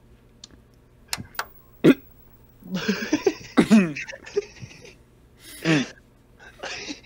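Short bursts of a person's voice without words, like coughs or throat noises, with a few sharp clicks in the first two seconds.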